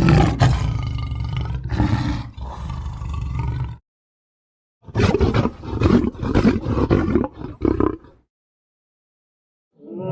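Cartoon lion roar sound effects. A long roar ends about four seconds in. After a short silent gap comes a choppy run of roaring grunts lasting about three seconds, and another roar begins near the end.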